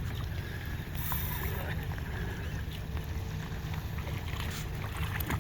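Steady low rumble of a small fishing boat on open water, with wind on the microphone.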